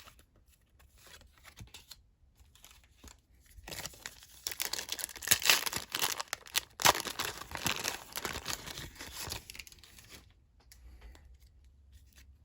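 A trading card pack wrapper being torn open and crumpled by hand: a dense papery crackle that starts about four seconds in, runs for about six seconds and then dies down to light handling.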